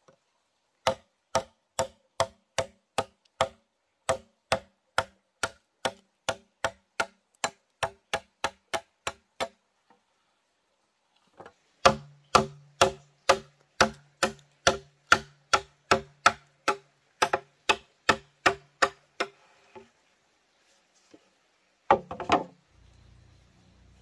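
Hand tool striking bamboo in a steady rhythm, about three sharp, ringing blows a second. There are two long runs with a pause of about two seconds between them, then a short cluster of knocks near the end.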